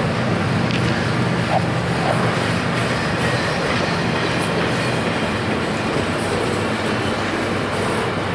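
Double-stack intermodal well cars of a freight train rolling past: a steady rumble of steel wheels on rail, with a faint high-pitched wheel squeal coming and going in the middle.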